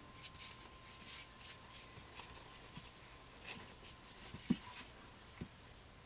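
Puppies and their mother stirring on newspaper bedding: faint soft rustling and shuffling, with a brief, sharper little sound about four and a half seconds in and a softer one a second later.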